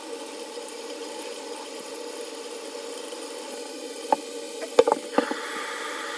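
Tap water running steadily into a sink and splashing onto a wet leather cowboy boot. A few short knocks come about four to five seconds in, after which the splashing sounds brighter.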